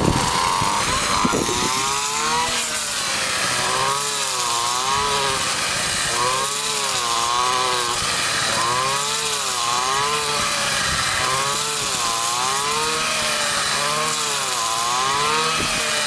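Petrol brush cutter engine running at working speed as its blade cuts through standing rice stalks, its pitch dipping and rising again and again with each swing.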